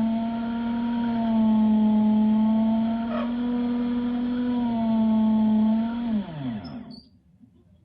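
Electric drill boring into a thick concrete wall: the motor runs with a steady whine, its level wavering slightly under load. About six seconds in the motor is let off and winds down, the pitch falling until it stops.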